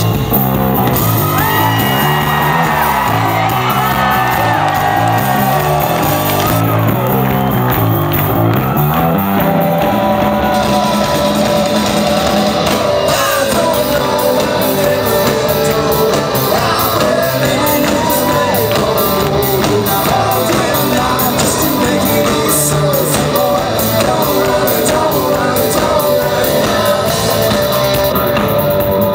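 Live rock band playing at full volume: drum kit, a stepping bass line and guitar, with crowd shouts and whoops mixed in.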